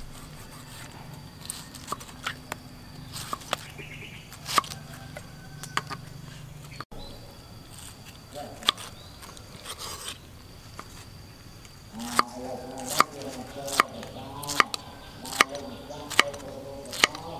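Kitchen knife cutting through pineapple and knocking on a wooden chopping board: scattered slices at first, then steady chops about once a second in the last few seconds. A voice is heard under the chopping in the last few seconds.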